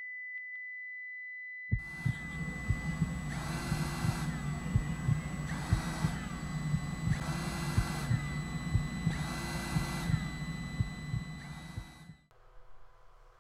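Electronic sound-design effects: a steady high beep, then a hissing drone with crackling low pops and a pulse of sweeping chirps about every second and a half, which cuts off near the end.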